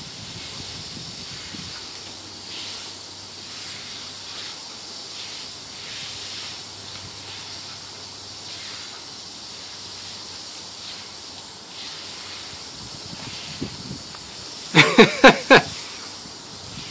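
Steady hiss of water spraying up from a garden hose lying on the lawn. About two seconds before the end, a dog playing in the spray gives four quick, loud barks.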